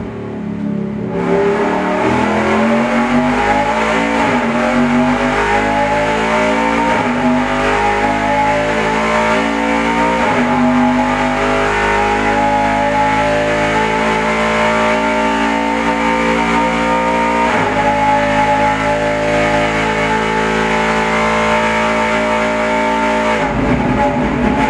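Roush Yates Ford Daytona Prototype racing V8 on an engine dyno, running a simulated lap of Daytona at full throttle. The revs climb after a lift about a second in, with three brief breaks as it shifts up, then hold high and steady before it drops off near the end as it lifts.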